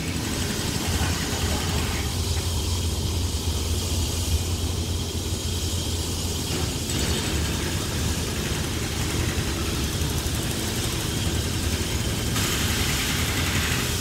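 Hitachi diesel-electric locomotive engine running with a steady low drone and a hiss of noise above it.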